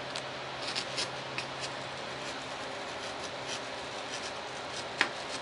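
Hobby knife blade cutting curved scallops through a paper plan into foam board: a run of short, irregular scratchy strokes, with a sharper click about five seconds in.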